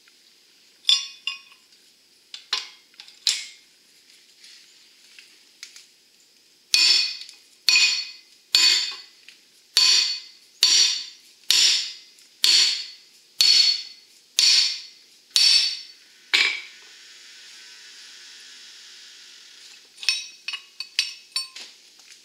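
Short sledgehammer striking the U-joint and yoke of a truck axle shaft clamped in a bench vise, driving out the rusted U-joint. A few light taps come first, then about eleven hard, ringing metal blows roughly one a second. A few seconds of steady hiss follow, then light metallic clinks near the end.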